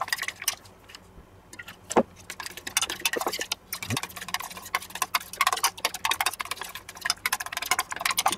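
Metal spoon stirring a marinade in a small stainless steel bowl, clinking against the bowl in a run of quick, light clicks. There is a louder knock about two seconds in.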